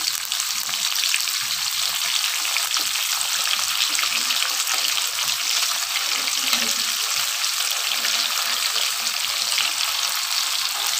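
Coated chicken pieces for chicken 65 deep-frying in hot oil in a pan: a steady, crackling sizzle.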